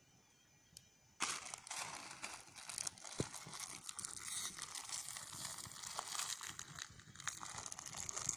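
Plastic instant-noodle packet crinkling and rustling as it is handled and torn open, starting about a second in.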